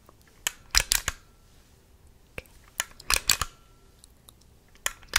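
Sharp mechanical clicks from a handheld camera, close to the microphone: single clicks and quick clusters of several clicks every second or so, a few of them leaving a faint short ring.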